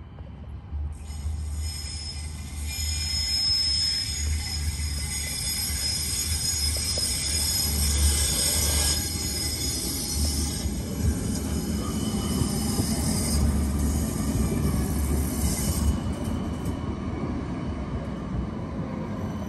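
Light rail tram running on the rails, its wheels squealing in several high-pitched steady tones that start about a second in and die away near the end. A low rumble grows louder in the second half.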